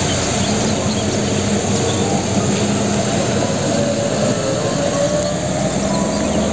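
Large fuel tanker truck's diesel engine running steadily as it drives along a wet road, with a constant hiss of tyres on water over the low hum.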